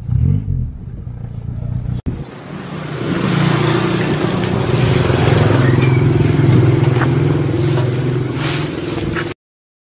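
A motor vehicle engine running steadily, louder after about two seconds, with a few light clicks. The sound cuts off abruptly near the end.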